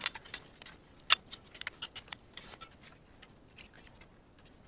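Small irregular clicks and taps of plastic and metal parts as a Mercedes W126 speedometer is handled and fitted back together by hand, with one sharper click about a second in.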